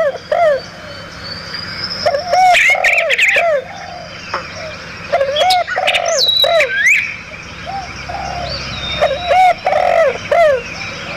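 Several wild birds calling: phrases of short, repeated, arching notes come about every three seconds, with higher chirps and whistles between them.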